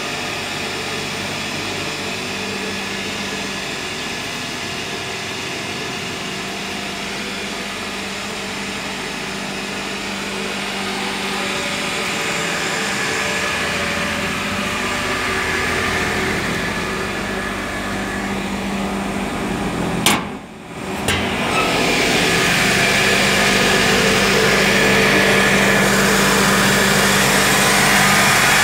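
Cable-production machinery running: a steady mechanical hum and whir of motors and cooling fans, with several steady tones. The sound cuts out briefly with a click about twenty seconds in and comes back louder.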